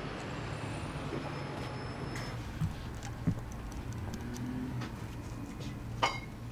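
Low, steady hum of background ambience with a few faint knocks, then one sharp glass clink near the end as a bottle is taken from a shop's drinks shelf.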